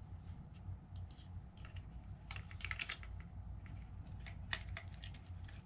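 Scattered light plastic clicks and taps as the circuit board is handled and slid back into the opened SJRC F11 drone controller's plastic case, in a quick cluster about halfway through and again near the end. A steady low hum runs underneath.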